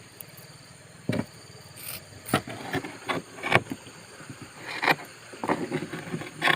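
Irregular short scrapes and knocks from hand work on a fibreglass boat hull, about eight in all, mostly in the second half.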